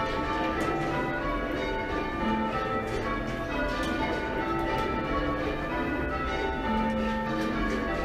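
Ring of six church bells, five by Thomas Mears of Whitechapel and the tenor by Mears and Stainbank (about 8½ cwt, in A-flat), rung in steady succession. Each bell's ringing tone overlaps the next strike.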